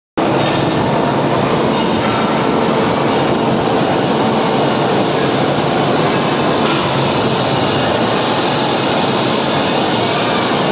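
Loud, steady mechanical noise that starts abruptly.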